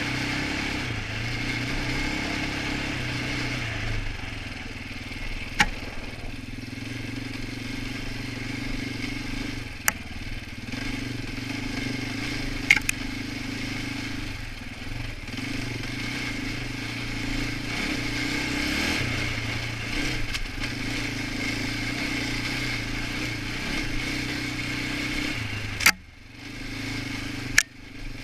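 Polaris Outlaw 525 ATV's KTM-built single-cylinder four-stroke engine running under varying throttle while riding, with a few sharp knocks along the way. Near the end the engine note drops away briefly twice as the throttle comes off.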